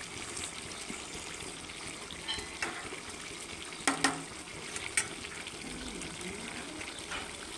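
Chicken and potato curry cooking in a kadai in its own released juices and oil, with no water added: a soft, steady bubbling sizzle. A few light clicks come about two to five seconds in.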